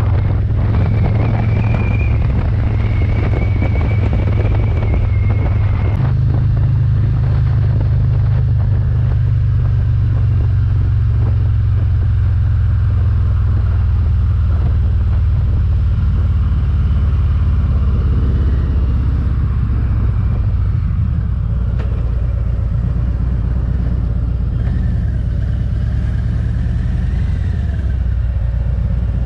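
Harley-Davidson Road King Special's V-twin engine running steadily as the motorcycle rides along, a loud low drone whose note changes about six seconds in.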